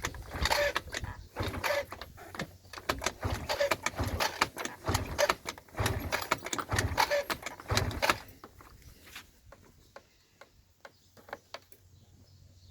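Yamaha Jog scooter engine being turned over in short repeated attempts, about one a second, without catching: the scooter won't start. After about eight seconds the attempts stop and only a few faint clicks remain.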